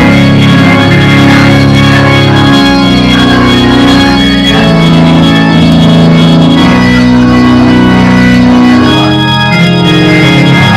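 Organ playing slow, held chords that change every second or two, with no singing or speech over it.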